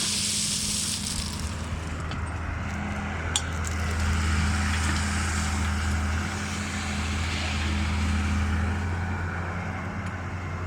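Excavator's diesel engine running steadily with a low hum, swelling louder twice as it takes load. A single sharp click about three seconds in.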